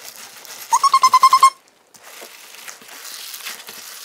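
Rubber skin of a large squishy stress ball squeaking under the fingers about a second in: one short, high squeak that pulses rapidly. Then the ball, filled with glue-soaked water beads, makes a soft, wet crackling squish as it is kneaded.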